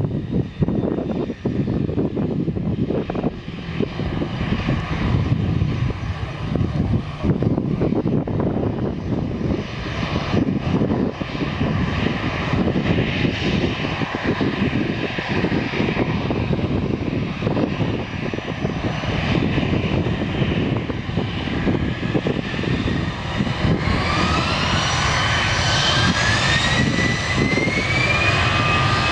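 Airbus A319 jet engines running with a loud, steady rumble. Near the end a whine of several tones rises in pitch as the engines spool up.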